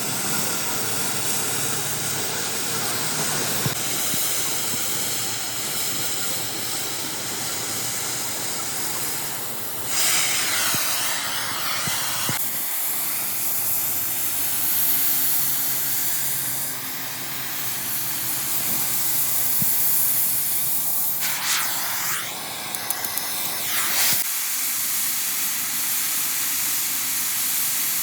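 A steady hissing noise, with two louder spells of high hiss, one about ten seconds in and one about twenty-one seconds in, and a few sharp ticks during the second.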